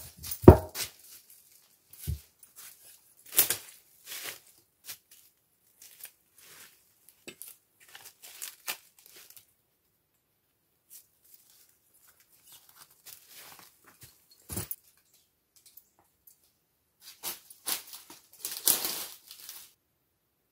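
Dry leaf litter and dead palm fronds crunching and rustling under footsteps and handling, in short separate bursts with some tearing and a few sharper knocks. A quiet stretch falls in the middle.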